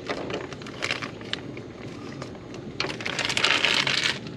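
Thin clear plastic parts bag crinkling and crackling as it is handled and opened, with a louder stretch of crinkling from about three seconds in, lasting about a second.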